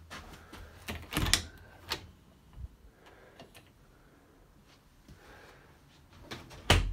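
Panelled interior door being handled: its metal knob and latch click sharply about a second in, a few lighter knocks follow, and a louder knock near the end is the loudest sound.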